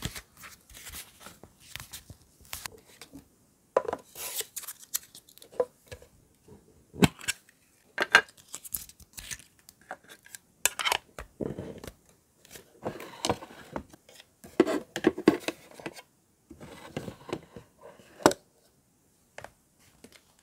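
Hands handling paper journaling supplies: paper rustling, a small metal tin opened with its lid clicking against things, and a leather-covered notebook set down. Heard as an irregular string of taps, clicks and brief rustles.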